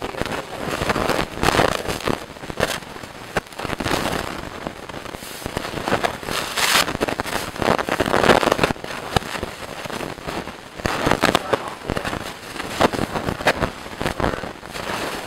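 Cherry-strawberry jam boiling hard in a pot, bubbling with dense, irregular crackling and popping as it is stirred with a wooden spoon.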